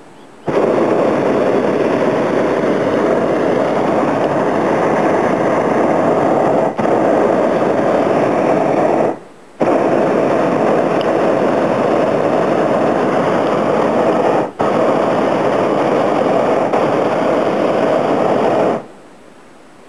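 Hot-air balloon's propane burner firing, a loud steady blast that starts abruptly and runs in long burns, broken by a brief drop-out about a third of the way in, a short gap near the middle, and another brief drop-out later, before it shuts off near the end.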